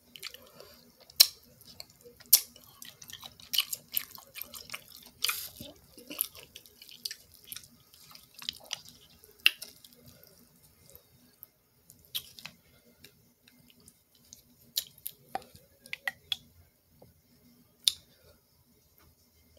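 Wet eating sounds of a seafood boil: scattered sharp clicks and smacks of chewing and of fingers peeling shrimp and handling mussel shells. They are busiest in the first half, then come only every second or two.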